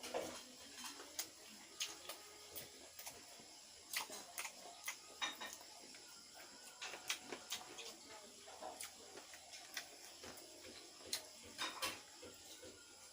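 Mukbang eating sounds: wet mouth clicks, lip smacks and chewing, coming as irregular sharp clicks, several a second at times.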